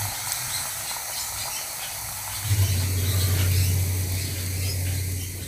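Spinach fritter batter sizzling as it deep-fries in hot oil in a frying pan, with small crackles. About halfway through, a loud, low steady hum comes in under the sizzle.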